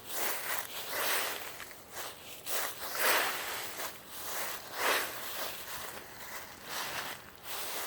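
Rustling in irregular bursts, about one a second, as someone digs and rummages through a pile while searching.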